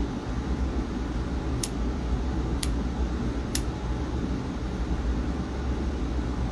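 Steady low background rumble, with three short high clicks about a second apart.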